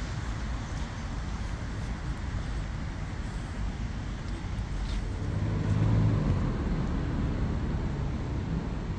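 Outdoor traffic noise: a steady background hum of road vehicles, with one vehicle passing closer and louder a little past halfway through.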